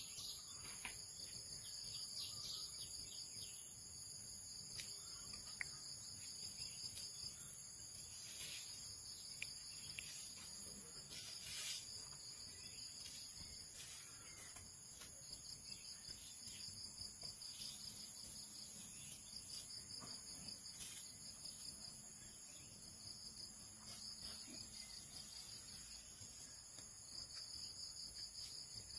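Faint, steady chorus of insects trilling at several high pitches, with a few faint clicks scattered through it.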